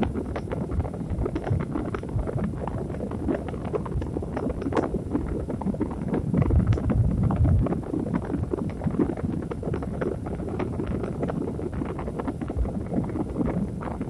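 A continuous rumbling noise track played as white noise for sleep. It is heavy in the low end and full of constant fine crackling, with no pitch or rhythm.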